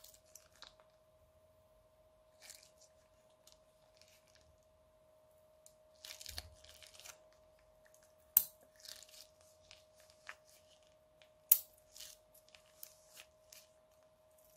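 Plastic piping bag crinkling and crackling in the hand as pink slime is squeezed out of it, in scattered short crackles with two sharp louder clicks about eight and eleven and a half seconds in. A faint steady hum underneath.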